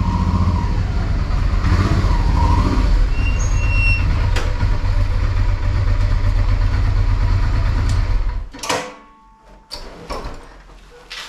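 Honda XL 600 V Transalp's V-twin engine running with a steady low rumble, now that the bike runs with its new clutch cable. The engine sound stops abruptly about eight and a half seconds in, followed by a few sharp clicks and knocks.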